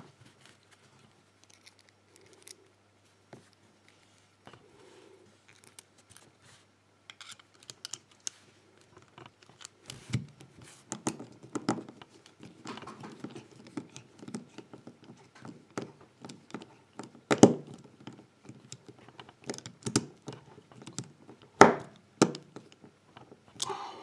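Small metallic clicks and scraping as a screwdriver turns a security screw into a brass padlock body and the lock is handled on a cloth; sparse at first, busier about halfway through, with two sharp clicks in the second half.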